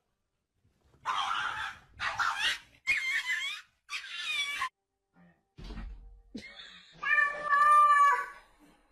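Cats meowing: several short, rough cries in the first half, then one long, loud, steady meow near the end.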